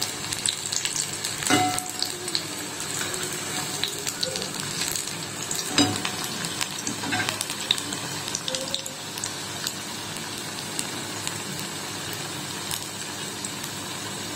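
Cauliflower pakoras deep-frying in hot oil in a karahi, a steady sizzle throughout. A few sharp knocks of the spatula against the pan cut in, about a second and a half and about six seconds in.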